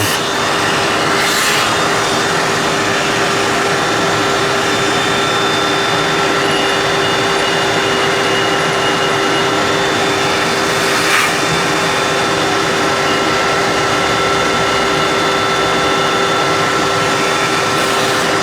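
Shop vacuum running steadily with a machine tool's spindle turning under it while a half-inch reamer cuts through an engine cylinder bore. There is a brief faint tick about eleven seconds in.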